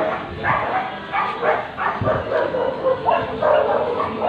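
A dog barking over and over in quick, even barks, about three a second.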